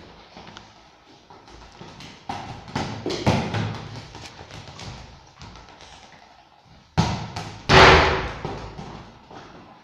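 Scattered thumps and taps of a Saint Bernard puppy and its ball on a hard stone floor during play, with a cluster of knocks about three seconds in and the loudest burst of knocking and noise near the end.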